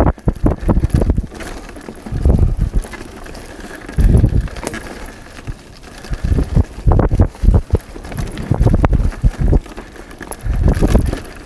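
Mountain bike descending a dirt singletrack strewn with dry leaves: tyres rolling and crunching over the leaves and bumps, the bike rattling, with irregular rumbling gusts of wind buffeting the camera microphone.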